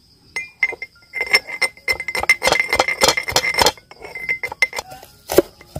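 Metal pestle pounding green chillies, ginger and garlic in a steel mortar: rapid metallic clinks, several a second, with a ringing tone. The pounding pauses briefly a little before the four-second mark, then a few more strikes follow.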